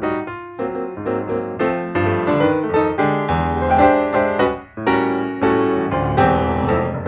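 Background piano music: quick runs of piano notes.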